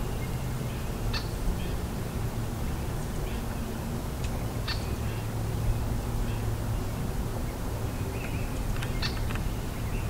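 Scattered short bird calls and chirps, a few seconds apart, over a low steady hum.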